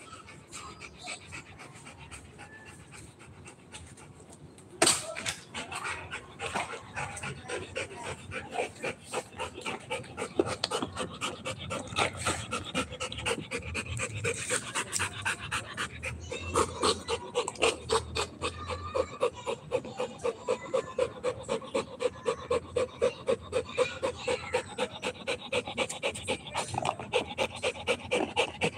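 A dog panting after chasing a ball, about two to three breaths a second, getting louder and more regular from about five seconds in. A single sharp click comes about five seconds in.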